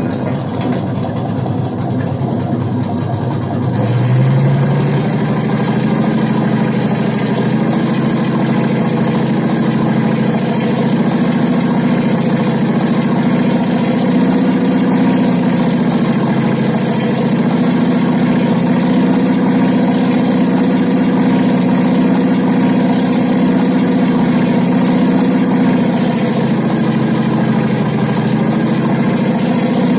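Panther tank engine sound from an RC tank sound board, idling low, then revving up about four seconds in and running on at a higher pitch that shifts up and down a little.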